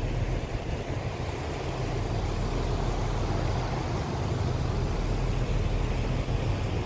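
Passenger boat's engine running steadily: a low, even hum with a steady rushing noise over it.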